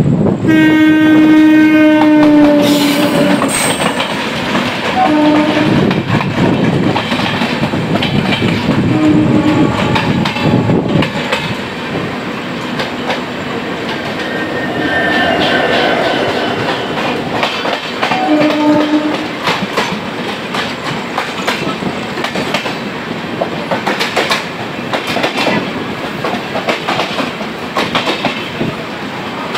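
Sampoorna Kranti Superfast Express passing at speed on the adjacent track. A train horn sounds one long blast near the start, then three short blasts spread through the pass, over continuous rumble and wheels clattering rapidly over rail joints.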